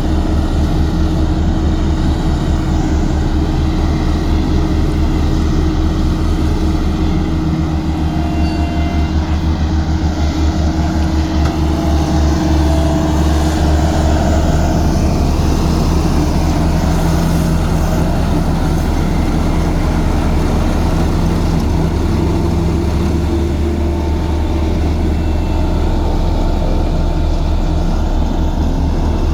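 Heavy diesel engine of earthmoving machinery running steadily, a low, even engine note that grows slightly stronger around the middle.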